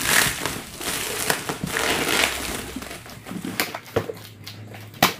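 Packaging rustling and crinkling as a parcel is unpacked by hand, with a sharp click about five seconds in.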